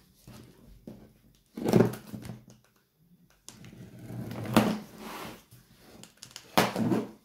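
Packaging being opened and handled: three bouts of rustling, scraping and light knocks with short quiet gaps between them.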